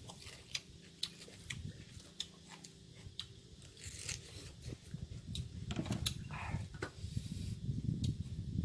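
A person chewing boiled buffalo skin and cucumber close to the microphone: crunching with many small wet mouth clicks and smacks.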